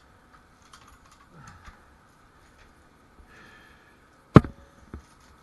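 Small clicks and rustling as a bicycle is handled at a steel cycle rack, then a sharp metallic clank a little over four seconds in, with a brief ring, and a lighter knock half a second later.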